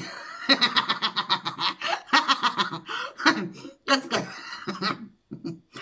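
A woman laughing, in several bursts of quick chuckles with short breaks between.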